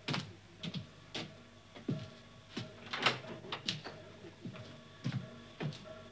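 Hand pump in a water tower being worked, giving a steady run of clanks and knocks about every half second.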